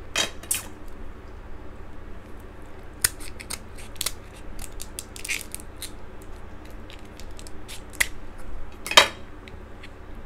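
Kitchen scissors snipping through crab leg shell, an uneven run of sharp clicks and crunchy snaps, the loudest about nine seconds in.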